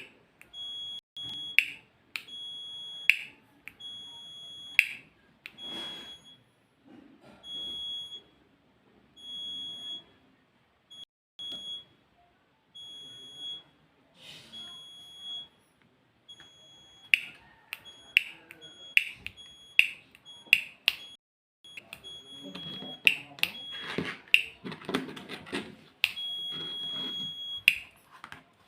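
A solar-powered doorbell's buzzer sounding a high, steady beep in repeated on-off bursts of uneven length, many of them starting with a sharp click, as it is switched on and off. There is rustling in the last few seconds.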